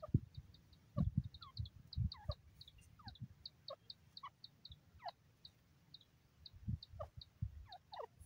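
Grey francolin close by giving short, soft, downward-sliding clucks, over a run of high thin chips about three or four a second. Several low thumps are the loudest sounds.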